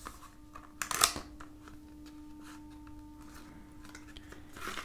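Cardboard earphone packaging being handled and slid open: scrapes and light knocks of card against card, the loudest about a second in and another near the end, over a faint steady hum.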